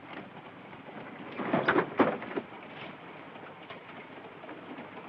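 Train compartment door being unlocked and opened: a quick cluster of rattling clicks and knocks from the lock and handle about one and a half to two and a half seconds in. Under it is the steady running noise of the train.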